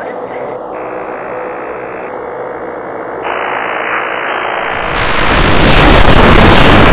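Loud harsh static-like noise as a soundtrack drone, swelling louder about two-thirds of the way through as a deep rumble joins it.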